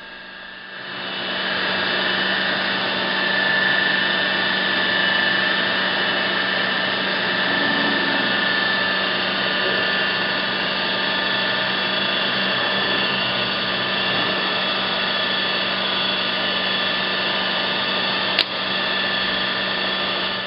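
Sharp vertical mill head running in powered downfeed mode, the spindle turning while the power quill feed drives the quill down: a steady machine whine with several held tones. It builds up over the first second or two, has a single sharp click near the end and then cuts off suddenly.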